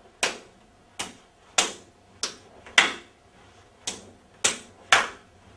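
Bare hands slapping together in a partner blocking drill, palms sliding off each other like a quick high five: eight sharp smacks, roughly two a second, with a longer gap a little past the middle.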